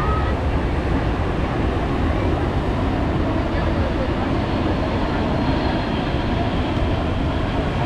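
Steady rumble of a heavy jet aircraft's engines, holding an even loudness without a clear rise or fall.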